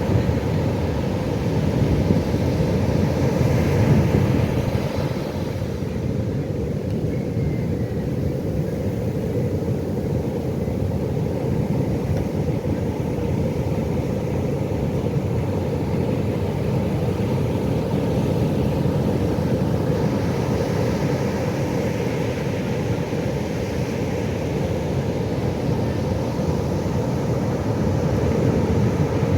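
Pacific Ocean surf washing onto a beach: a steady deep rumble of waves that swells louder a few seconds in and again in the second half.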